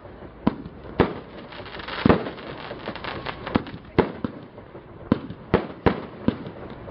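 Multi-shot consumer firework cake firing: sharp bangs at irregular intervals, roughly two a second, with a dense patch of crackling about two seconds in.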